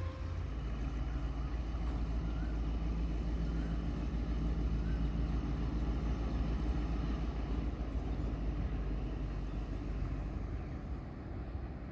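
Alsthom diesel-electric locomotive 4206 running with a steady low engine drone as it hauls a freight tank train into a station passing loop; the drone eases slightly near the end.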